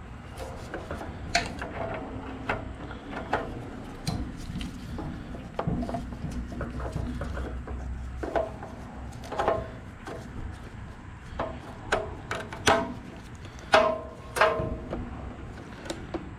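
Scattered clicks, taps and knocks of tools and small engine parts being handled during repair work on a small engine's fuel line, with a cluster of sharper knocks in the second half.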